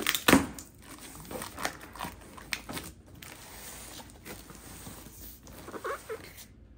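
Cardboard shipping box being handled: flaps bent back and the box pushed and turned, giving scattered crackles and rustles of cardboard and the plastic-wrapped packets inside, loudest right at the start.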